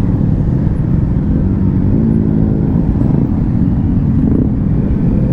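Motorcycle engine running steadily at low speed, its pitch shifting a little, with a deep rumble underneath.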